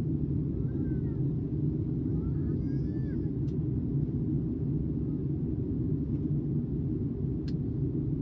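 Airliner cabin noise: the steady low rumble of the jet engines and airflow, heard from a window seat. Faint voices rise briefly about one to three seconds in.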